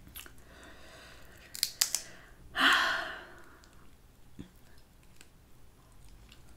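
Cooked Dungeness crab shell being cracked and picked apart by hand: a few sharp snaps, then a louder, longer crackling rush about two and a half seconds in that fades out.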